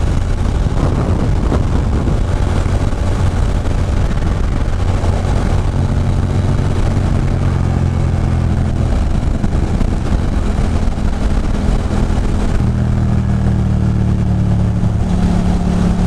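2006 Ducati Monster 620's air-cooled L-twin engine running at cruising speed, heard from the saddle under heavy wind rush on the microphone. The engine note changes a couple of times, about six and about twelve and a half seconds in.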